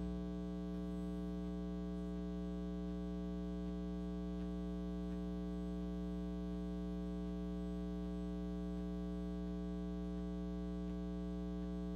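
Steady electrical mains hum from the sound system: a low buzz with a ladder of evenly spaced overtones that never changes in pitch or level.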